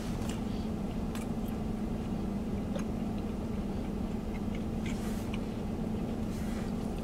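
Steady low hum inside a truck cab, with a few faint soft clicks.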